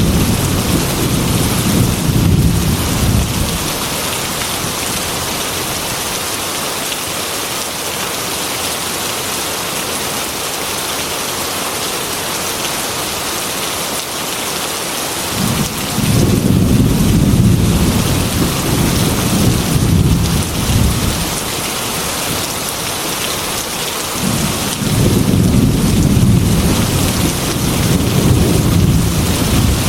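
Heavy rain hissing steadily on a glass window, with rolling thunder rumbling through it three times: fading out a few seconds in, again from the middle for several seconds, and again near the end.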